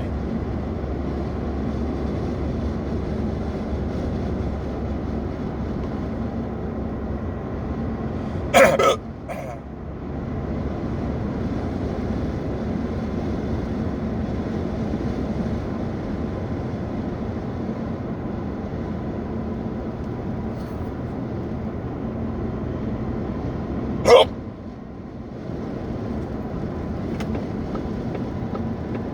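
Two sharp hiccups, one about nine seconds in and another about fifteen seconds later, over the steady road and engine noise inside a moving car.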